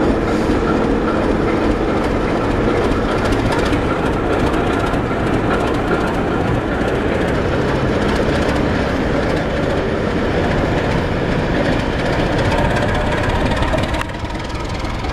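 ČD class 749 diesel locomotive 749.107, running without an exhaust silencer, rolling slowly past close by with its diesel engine running and its wheels clacking over the rail joints. The sound is loud and steady and drops a little about 14 seconds in.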